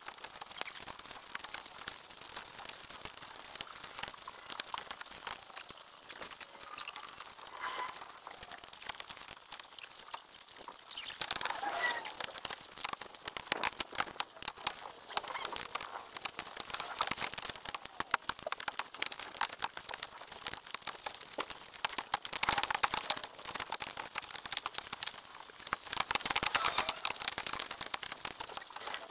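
Work sounds of stacking split firewood, played back at twenty times normal speed: a dense, rapid crackle of clicks and knocks with a few short high squeaks. It grows louder about eleven seconds in and again about twenty-two seconds in.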